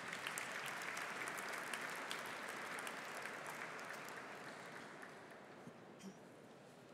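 An audience applauding. The clapping is strongest in the first couple of seconds and dies away over about five seconds.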